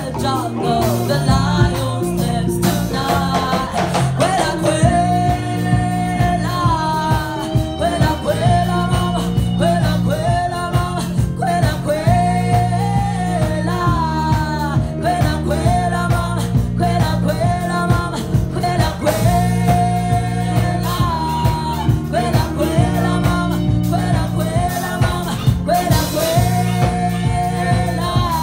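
A Zimbabwean marimba band playing live: interlocking wooden marimbas with a deep bass marimba line, congas keeping the beat, and several voices singing the melody over it.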